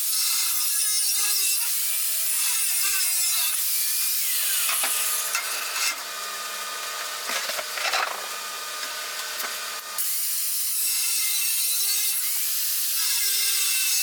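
Thin abrasive cutoff wheel (zip disc) on a grinder cutting through the steel bars of a window grate: a steady, high-pitched grinding hiss that eases off for a few seconds in the middle, then bites in again for the next cut.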